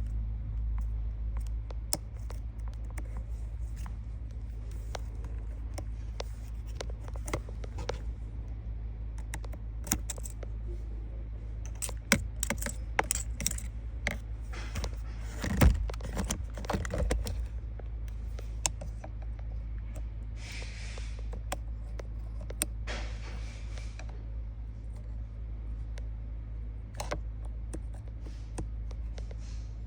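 Small metallic clicks, light rattles and short scrapes of hands and tools working at a car's steering wheel and airbag, busiest in the middle, over a steady low hum.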